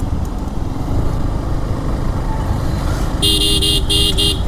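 Suzuki Gixxer motorcycle running in traffic, with steady engine and road noise. About three seconds in, a vehicle horn beeps four times in quick succession during an overtake.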